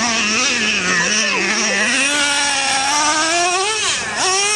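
Traxxas Revo 3.3's two-stroke nitro engine running hard as the RC truck drives. The pitch climbs steadily from about two seconds in, drops sharply near the end, then climbs again.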